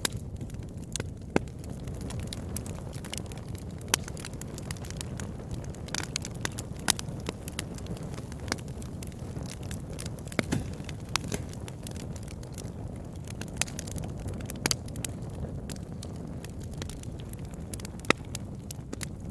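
Campfire burning: a steady low rumble of flames with irregular sharp crackles and pops from the burning wood.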